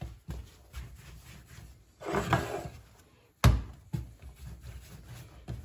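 Soft yeasted bun dough being slapped down onto the worktop during slap-and-fold kneading: a few dull thumps, the loudest about three and a half seconds in.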